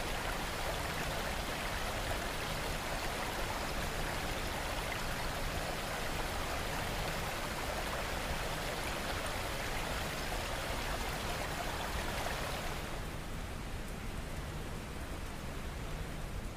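Steady rain ambience, an even hiss of falling rain. About thirteen seconds in the higher hiss drops away, leaving a softer, duller rain sound.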